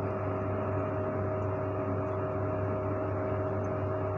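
Steady hum and whir of a running electric motor: a low hum with a couple of held tones over a soft, even hiss.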